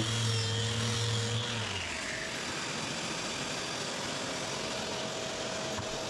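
An electric power tool motor running with a steady hum, then switched off about two seconds in, its whine falling in pitch as it spins down. A steady, even noise carries on afterwards.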